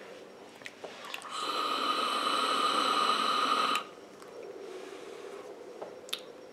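A drag through a Freemax Starre Pure sub-ohm vape tank with both airflow slots open, fired at 30 watts: a steady hiss of air with a whistling tone through the airflow, starting about a second in and lasting about two and a half seconds before it stops abruptly.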